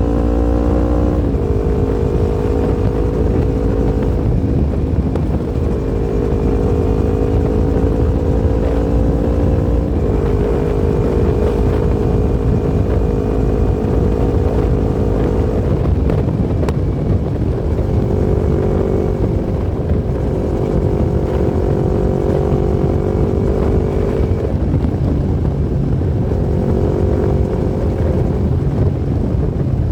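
Yamaha MT-25's 249 cc parallel-twin engine running under way, its note holding steady or slowly rising and then stepping to a new pitch several times, as at gear changes, over a steady low rumble.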